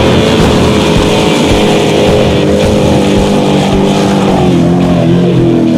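Formula Offroad buggy engine running hard at high, steady revs, easing off slightly near the end as the buggy skims across water.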